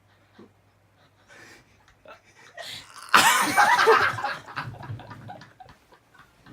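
Faint breathing, then about three seconds in a sudden loud burst of breath that runs straight into laughing and fades out over a couple of seconds.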